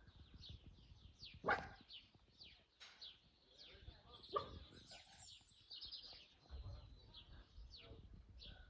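Faint background birdsong: many short, quick falling chirps from small birds, going on all the while. Two louder single calls cut through, about a second and a half in and again past four seconds, most like a distant dog barking.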